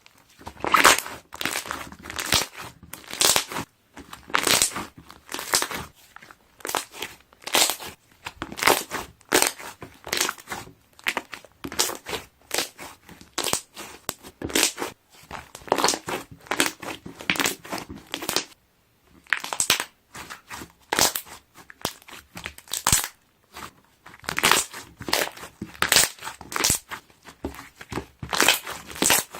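Airy bubble slime being pressed and squeezed, its trapped air bubbles popping in crackly clusters. The bursts come about once a second, with a brief pause partway through.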